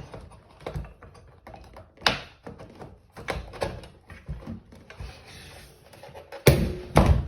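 Plastic and metal parts of a cordless nail gun clicking and knocking as its driver and spring assembly is worked into line inside the housing, with two louder knocks near the end as it goes into place.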